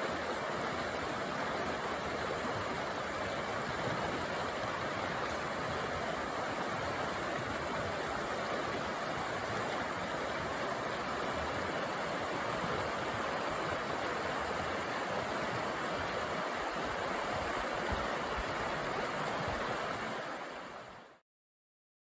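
Shallow, clear mountain stream flowing over rocks: a steady rush of water that fades out and stops about a second before the end.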